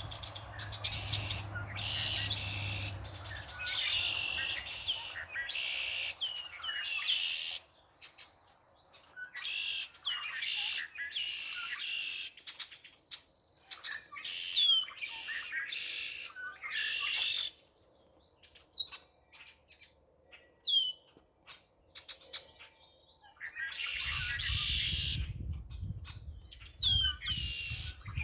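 Songbirds singing: repeated short, high song phrases about a second long, separated by brief pauses, with scattered single sharp chirps in the middle stretch. A low rumble runs underneath at the start and again near the end.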